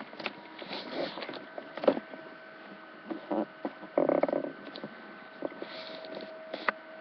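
Scattered clicks and knocks over a faint steady hum, with a short pitched sound about four seconds in.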